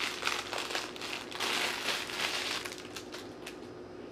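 Packaging around a hair bundle crinkling and rustling as it is handled and opened, dying down about three seconds in.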